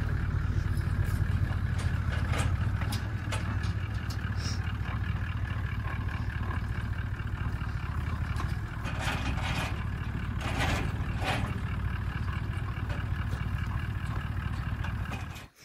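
A vehicle engine running steadily with a low rumble, with scattered rattles and knocks over it that bunch up about nine to eleven seconds in. The sound cuts off abruptly just before the end.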